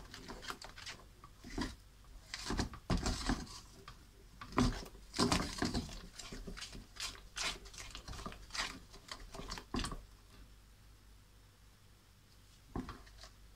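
Wooden spoon stirring and scraping thick caramel-chocolate sauce in a ceramic-coated frying pan: a run of uneven scrapes and soft knocks that stops about ten seconds in, with one more brief scrape near the end.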